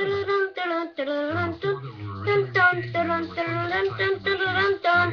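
Music with a singing voice: sung phrases over a low accompaniment.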